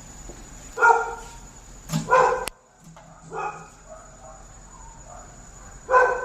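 A dog barking several times in short, separate barks: once about a second in, a double bark around two seconds in, a softer one a little later and another near the end.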